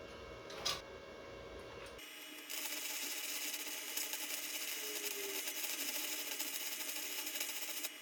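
Wire-feed (MIG) welder arc crackling and hissing steadily as a bead is laid, starting about two and a half seconds in and cutting off suddenly near the end when the trigger is released. A single sharp click comes just before it.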